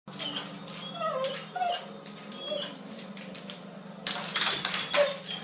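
A dog whimpering in short high whines, over a steady low hum, with a scratchy rustle near the end.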